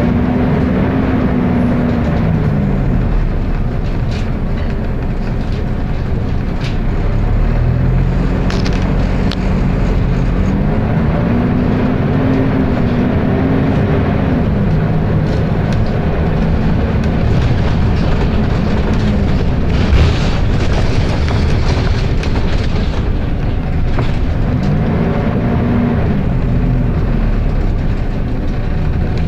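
Volvo B10BLE single-deck bus running, with its very loud cooling fan roaring throughout. A pitched drone rises and then falls three times: about a second in, around twelve seconds in, and near the end.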